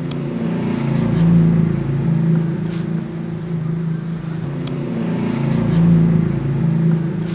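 A man snoring loudly: a low, rattling drone that swells twice, with each breath.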